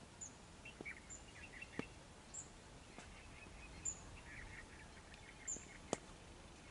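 Faint open-air background with a small bird's short, high chirp repeated about five times, a second or so apart, and two sharp clicks, one about two seconds in and one near the end.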